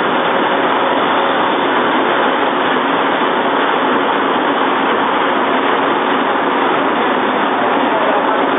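B180 automatic tissue rolling machine running, a loud, steady mechanical noise from its conveyors and rollers that goes on without a break.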